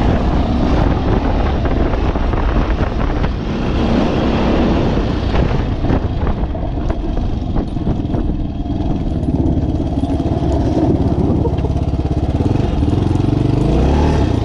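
Suzuki SP370's single-cylinder four-stroke engine running hard under the rider, heard close up while the trail bike is ridden along a dirt track. The engine pitch rises near the end as it revs up.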